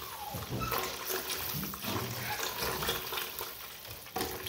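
Tap water running steadily into a stainless steel bowl of raw turkey neck pieces, splashing on the meat; near the end a hand plunges into the bowl to wash the meat.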